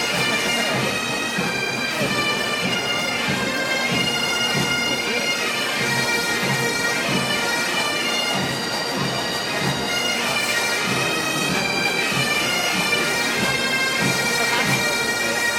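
Bagpipes playing: a melody over the pipes' steady drones, with a regular low beat underneath.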